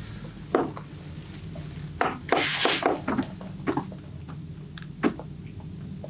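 Hands working on a person during a massage: scattered short rubs and soft knocks, with one longer rubbing swish about two and a half seconds in, over a steady low hum.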